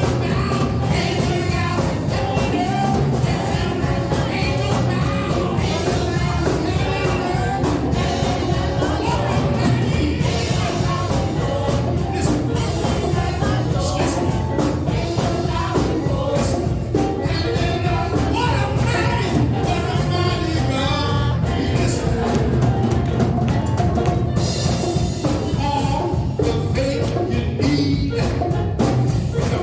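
Worship music: singing over a band with a heavy low end and a steady drum beat.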